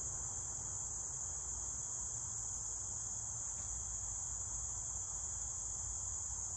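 Steady, unbroken high-pitched chorus of insects, typical of crickets.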